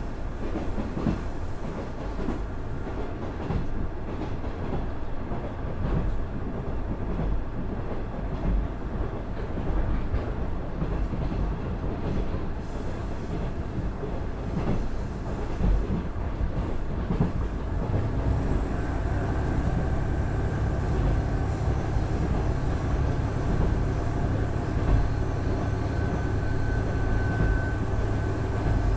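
KiHa 110 series diesel railcar running on rail, wheels clicking over rail joints. About two-thirds of the way through, its Cummins DMF14HZA diesel engine comes in with a steady drone that holds to the end.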